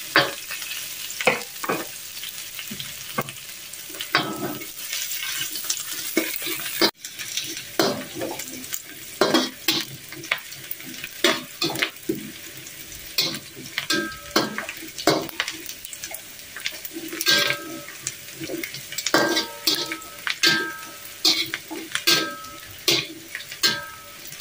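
Dried anchovies and sliced shallots sizzling in hot oil in a wok while a spatula stirs and scrapes them in quick, irregular strokes, as they fry toward crisp.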